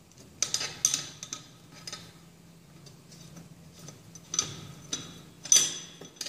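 Metal clinks and clicks from a steel Proctor compaction mold as its collar clamps are handled and tightened: irregular sharp taps, a few in the first second and the loudest near the end.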